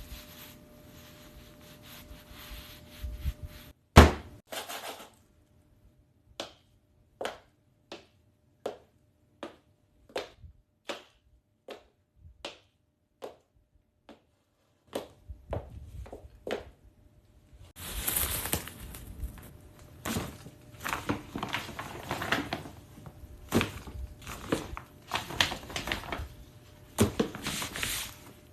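Foley sound effects: one loud, sharp thump about four seconds in, then a string of separate short taps with dead silence between them, and from about halfway on a dense, continuous crackling noise.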